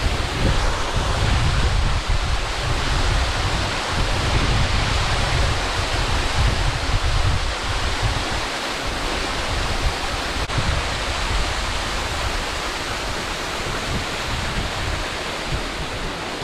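Steady rush of water in a mountain gorge, with wind buffeting the microphone as an uneven low rumble.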